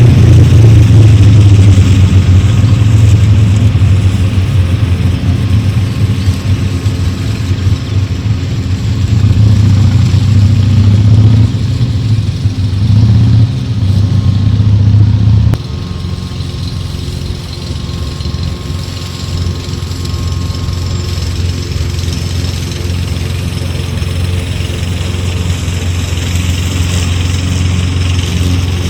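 Toro self-propelled gas push lawnmower engine running steadily while mowing. It drops suddenly in loudness about halfway through, then carries on at a steady, lower level.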